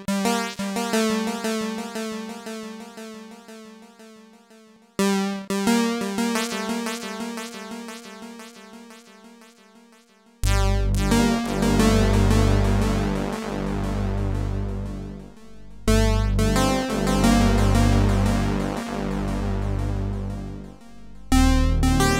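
Electronic music played by the intro's own software synthesizer. A repeating synth note pattern fades away, then starts again about five seconds in. About ten seconds in, a heavy pulsing bass joins and the music gets much louder, with new sections beginning near sixteen and twenty-one seconds.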